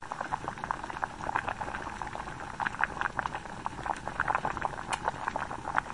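Water boiling, with a dense, irregular stream of small bubbling pops over a low hiss.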